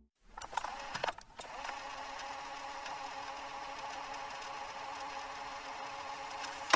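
A steady machine-like hum with a few clicks in the first second and one sharp click at the very end, where it cuts off.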